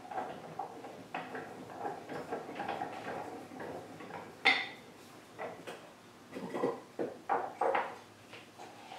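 Knocks and metallic clinks of the vise's steel screw and fittings being handled and drawn up into place, with one sharper ringing clank about four and a half seconds in and a run of knocks near the end.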